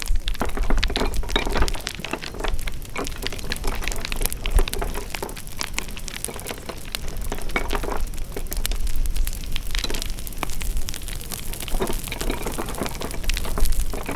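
Wood fire crackling: dense, irregular pops and snaps over a low rumble.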